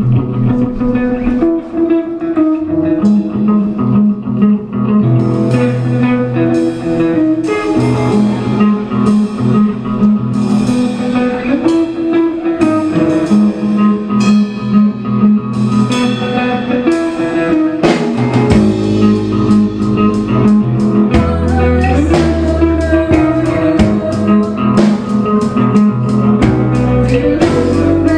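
Rock band playing live: electric guitars over a drum kit, with the low end growing heavier about 18 seconds in.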